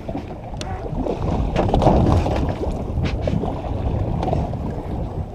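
Wind buffeting the camera microphone aboard a boat at sea, an uneven low rumble, with a few short sharp clicks or taps from handling of the rod and reel.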